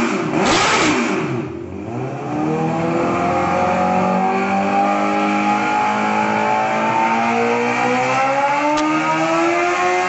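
Engine revving hard: after a rough, noisy opening second and a short dip, it settles into a held high-rev tone whose pitch climbs slowly and steadily for several seconds.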